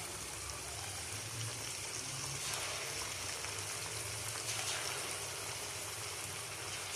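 Coated chicken pieces deep-frying in a pan of hot oil, freshly added, with steady sizzling of the bubbling oil.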